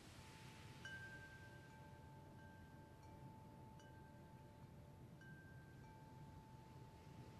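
Faint chime tones: single notes at a few different pitches, each struck cleanly and left to ring on, a new one entering every second or so.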